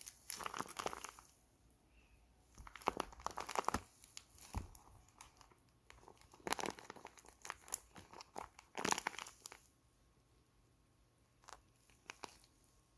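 A handmade tape squishy being squeezed and pressed by hand, its plastic-tape skin crinkling in bursts about a second long, five or so times, and then going still apart from a couple of faint clicks.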